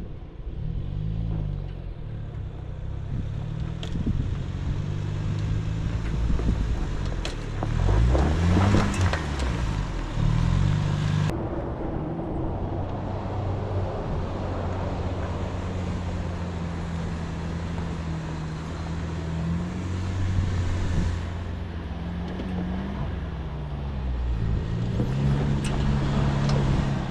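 Ford Bronco engine pulling at crawling speed up a rutted dirt trail, its note rising and falling with the throttle, with scattered knocks and crunches from the tyres on dirt and rock. The sound breaks off abruptly about eleven seconds in and picks up again with the engine still working.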